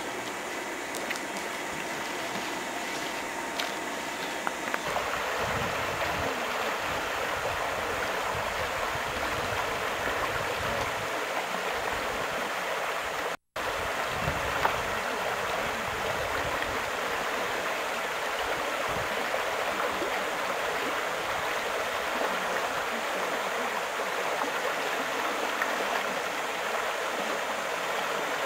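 Rushing water of a small river rapid, a steady hiss that grows fuller about five seconds in and cuts out for an instant about halfway through.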